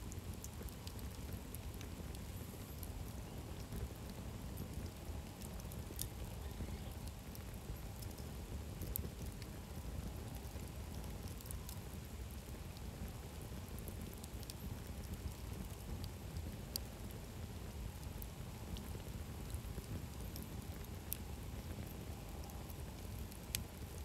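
Wood campfire burning, with scattered sharp crackles and pops from the logs over a steady low rumble.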